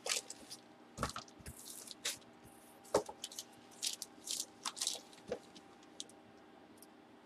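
Clear plastic wrapping crinkling and crackling in irregular short bursts as it is pulled off a graded comic slab by hand.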